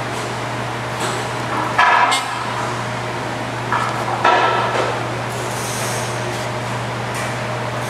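Workshop background noise: a steady low hum, broken twice by short sharp bursts of noise about two and a half seconds apart, with a faint high hiss near the end.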